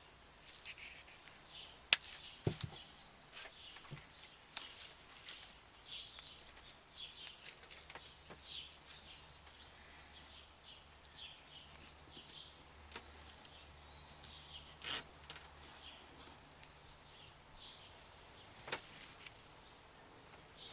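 Tape being pressed and worked over the drilled vent holes of a 37mm smoke projectile tube: soft crinkling and rustling handling noise with a few sharp clicks and taps, the loudest about two seconds in.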